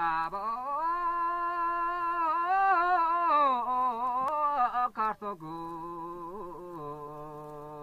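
Background music: a single voice singing a slow, chant-like melody in long held notes that slide up and down, stepping up in pitch about half a second in and dropping to a lower held note after about five seconds.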